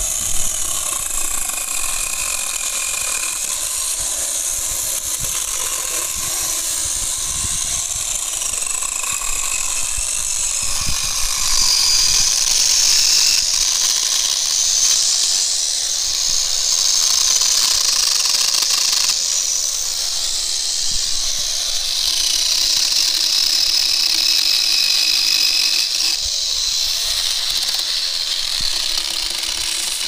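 Corded electric chainsaw running and cutting through tree wood: a high motor whine that shifts in pitch now and then as the chain bites and eases, over the hiss of the chain cutting.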